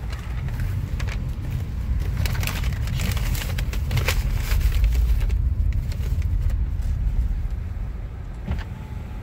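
Low rumble of a Mazda car moving at low speed, heard from inside the cabin. A paper fast-food bag rustles and crinkles from about two to four and a half seconds in.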